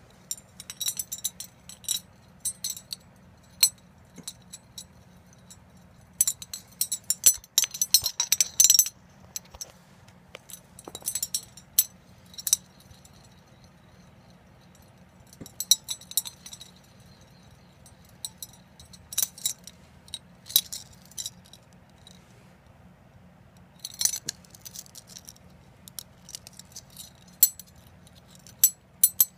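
Dadson Blade Baits Boo Dadley 10 musky bucktail spinnerbaits being handled: their metal blades, clevises, beads and chain links clink and jangle together in short bursts of light metallic clicks, with pauses between.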